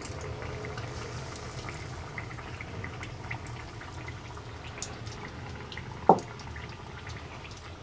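Chicken pieces deep-frying in hot oil: a steady, fairly quiet sizzle with many small crackles and pops. A single brief louder knock sounds about six seconds in.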